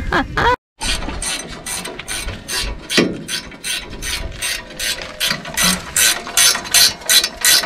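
Socket ratchet clicking in repeated strokes as it turns a bolt on a rear brake caliper, the clicks coming faster in the second half. The brake had been found loose and dragging.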